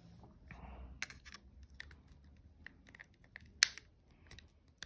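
Small clicks and scrapes of a flathead screwdriver working under the edge of a Rode NT-USB Mini microphone's front panel, easing its hook tabs loose, with one sharp, much louder click about three and a half seconds in.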